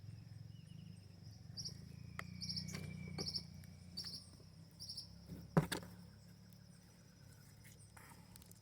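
Insects chirping: a steady high trill with a few short, pulsed chirps in the first half. Several light clicks and one sharp knock just past halfway, like something being handled or set down on a table.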